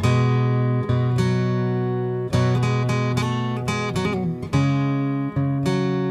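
Background music: an acoustic guitar strumming chords, each chord struck and left to ring, with a new chord every second or two.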